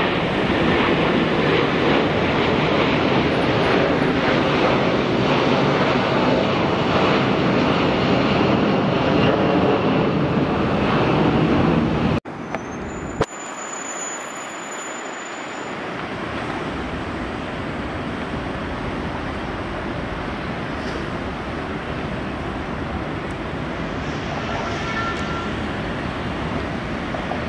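Jet engines of a climbing Airbus A330 airliner, a loud steady roar. It cuts off abruptly about twelve seconds in, giving way to a quieter, steady rushing noise of distant jet engines.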